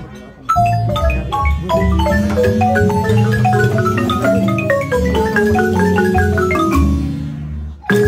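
Guatemalan marimba played by several musicians at once, mallets striking the wooden keys, with low bass notes beneath. The music breaks off briefly at the start, then runs of struck notes step downward in pitch, and it dips again for a moment just before the end.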